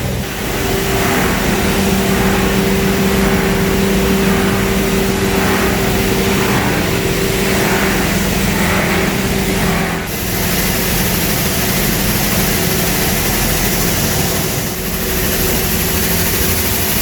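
Copper cable chopping plant machinery running: a steady hum under dense, continuous mechanical noise. The sound changes abruptly twice, about ten seconds in and again near fifteen seconds.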